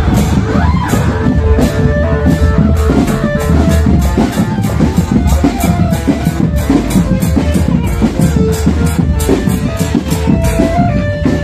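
Marching drum band playing a tune: a melody line carried over a dense bed of drums, with sharp cymbal and snare hits on a steady beat.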